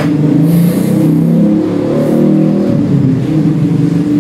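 An engine running steadily, its pitch wavering slightly up and down.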